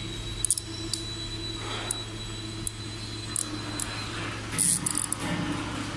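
Hand tapping a thread into the steel back plate of an air compressor with a 1/2-inch tap: a few light metal clicks and a brief scrape about four and a half seconds in, over a steady machine hum.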